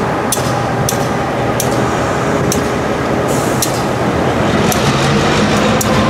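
CSX SW1001 switch engine running as it moves slowly past: a steady diesel rumble from its EMD eight-cylinder engine, with sharp clicks about once a second.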